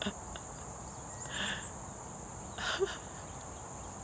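Steady high-pitched trilling of an insect chorus in summer vegetation, with two short louder sounds about a second and a half and nearly three seconds in.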